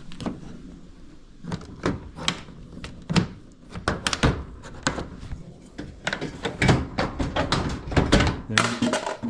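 Whirlpool Duet dryer panels and parts being handled during disassembly: an irregular run of knocks and thunks, busiest in the second half.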